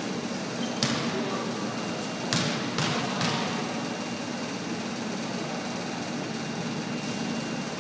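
Steady hum of a gymnasium hall during a lull in a basketball game, with a few short knocks about one, two and a half, and three seconds in.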